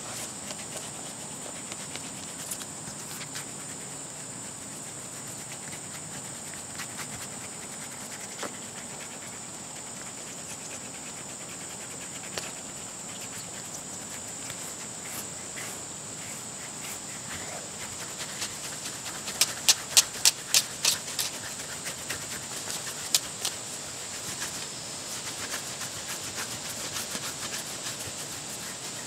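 Kong rubber brush rubbing through a short-haired dog's coat, a soft steady rustle over a steady high-pitched hiss. About two-thirds of the way in comes a quick run of sharp clicks.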